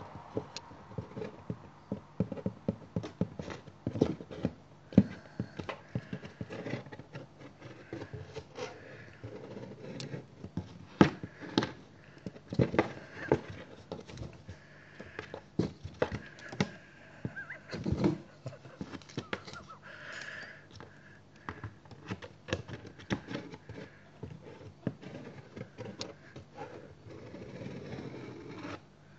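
Irregular knocks, taps and scrapes on a cardboard box as a cat inside bats its paw through the hand-holes at a screwdriver poked in from outside, paw and tool striking and scratching the cardboard.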